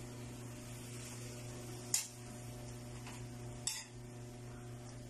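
A cooking utensil clinks twice against a pan, about two seconds apart, over a steady low hum.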